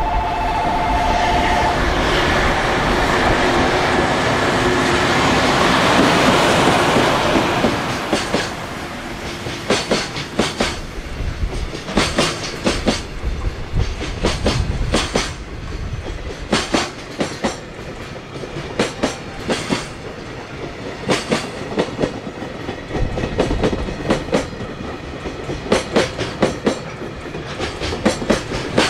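Freight train passing: a short two-note horn near the start, then the locomotive goes by loudly for several seconds, followed by a long string of freight wagons clicking over the rail joints.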